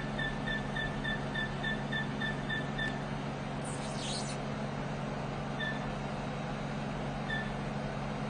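808 nm diode laser hair-removal machine beeping rapidly, about four short beeps a second, as the handpiece fires pulses, then falling silent about three seconds in. A brief rustle follows, then two single beeps from the touchscreen being pressed, over the machine's steady low running hum.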